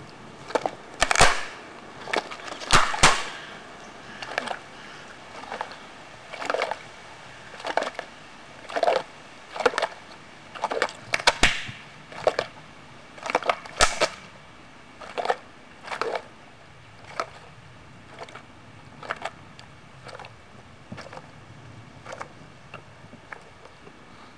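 An American alligator's jaws crunching a turtle's shell to bits: a string of sharp cracking crunches about one a second. They are loudest in the first few seconds and again around the middle, and grow fainter toward the end.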